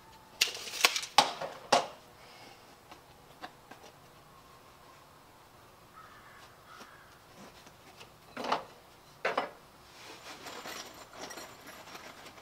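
Handheld tools and hardware clattering: a quick run of sharp metallic clacks in the first two seconds, fitting a steel tape measure being let go and snapping back, then two separate clinks later on and a light rattle near the end.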